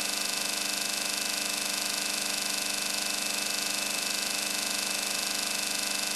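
Steady hum with several fixed tones over a hiss, from the running rig: the CR-Kromrey converter's rotors spinning and a small Tesla coil keeping the plasma tube struck.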